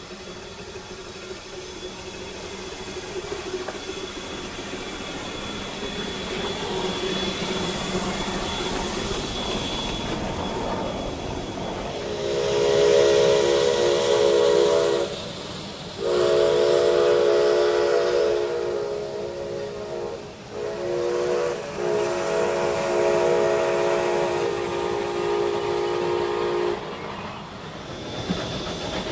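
Steam hiss from a Lima-built Shay narrow-gauge steam locomotive, growing louder, then its chime steam whistle sounds four blasts: long, long, short, long, the pattern of a grade-crossing signal.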